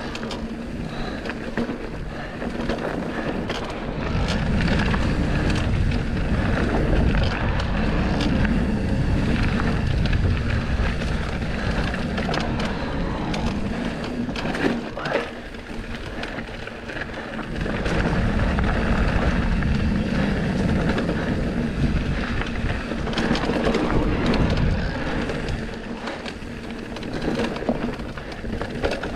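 Trek Rail 7 electric mountain bike riding a dirt trail: wind buffeting the microphone and the tyres rumbling over the ground, with short clicks and rattles from the bike. It comes in louder and quieter stretches.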